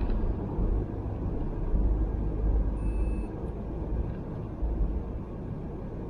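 Low steady rumble of a Great Wall Hover H3 on the move, heard inside the cabin, with a short faint high tone about three seconds in.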